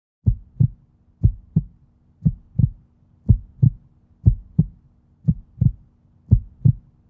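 Heartbeat: paired low lub-dub thumps, about one beat a second, steady and even, over a faint steady low hum.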